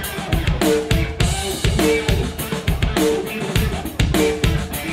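Live rock performance: a drum kit keeps a steady, fast beat under a repeating electric guitar riff.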